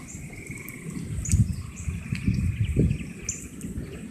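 Gusty wind buffeting the microphone in irregular low rumbles, strongest through the middle, while birds chirp and call above it.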